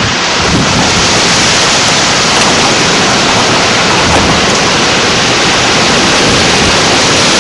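Strong storm wind blowing through leafy trees and buffeting the microphone: a loud, steady rush of noise.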